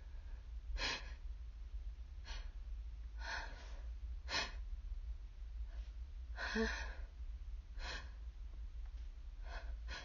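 A person with a cold taking short, uneven breaths and small gasps, about seven in all, the strongest about two-thirds of the way through with a brief catch in the voice, as a sneeze builds. A steady low hum runs underneath.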